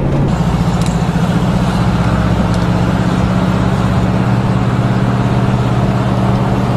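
Vehicle engine heard from inside the cab while driving, a steady drone mixed with road noise. Its pitch rises a little over the first second or two, as if accelerating, then holds steady.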